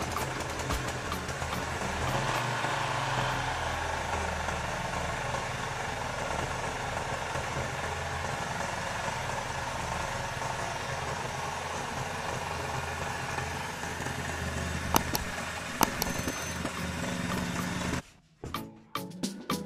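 Restored Honda GX160-type single-cylinder four-stroke engine running steadily after being pull-started. It stops abruptly near the end and music with a beat follows.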